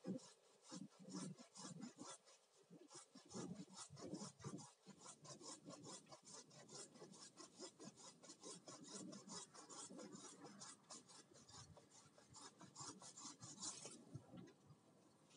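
Faint, quick rasping strokes on bamboo worked by hand, about five or six a second in an even rhythm. They stop about a second before the end.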